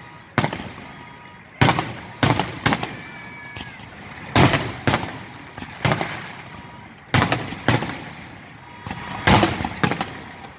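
Fireworks salute: a dozen or so loud shell bursts at irregular intervals, some in quick pairs and triples, each trailing off in a rolling echo.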